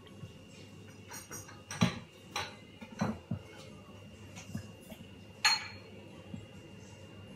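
A handful of sharp, irregular knocks and clinks of a knife and fruit being handled in a stainless-steel hotel pan on a steel counter.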